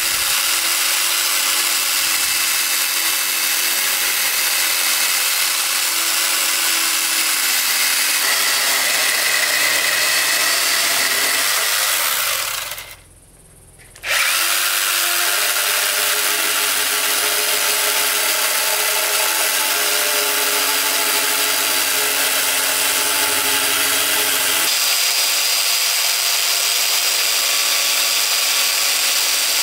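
Small handheld electric chainsaw running and cutting through small logs: a steady high motor whine with the chain rasping through the wood. It breaks off for about a second near the middle, then resumes.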